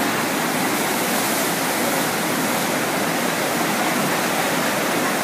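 Steady rush of water from a FlowRider surf simulator, its pumped sheet of water streaming and spraying up the padded ramp.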